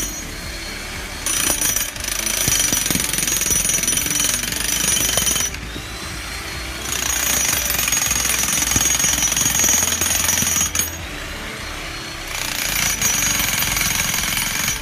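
Electric demolition hammer driving a steel bearing pin down through a concrete pier head into the ground, rattling in three runs of about four seconds each with short pauses between.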